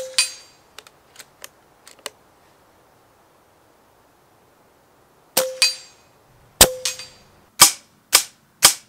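FX T12 .22 pre-charged pneumatic air rifle firing at about 24 foot-pounds: a sharp crack at the start, a few light clicks a second or so later, then a string of shots from about five seconds in, the last ones coming roughly every half second.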